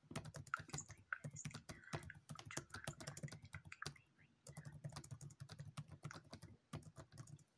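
Typing on a laptop keyboard: a quick run of faint key clicks, a short pause about four seconds in, then more typing.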